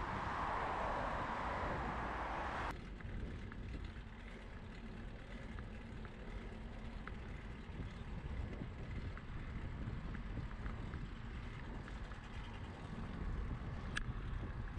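Road and traffic noise with low wind rumble on the microphone while cycling along a city street. A louder traffic hiss cuts off abruptly about three seconds in, and there is a single sharp click near the end.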